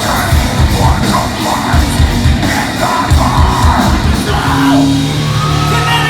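A heavy metal band playing live and loud, with distorted guitars, shouted vocals and rapid, pounding kick-drum hits. About four seconds in, the rapid drumming gives way to a held, sustained chord.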